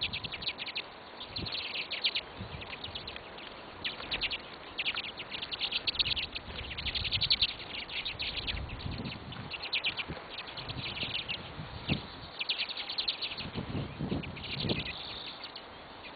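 Small birds chirping in quick runs of short, overlapping notes, several at once, continuing throughout.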